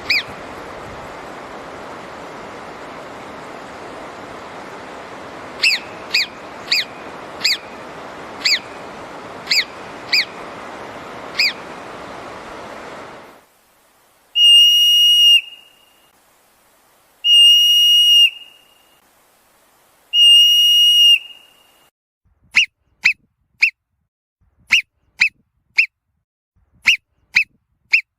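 Marmot whistle calls. First about eight short, sharp chirps over steady wind noise, then three long held whistles of about a second and a half each, each dipping slightly at the end, then a quick run of short chirps in twos and threes.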